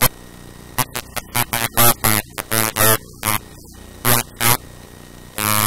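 A person speaking in short phrases over a steady mains hum.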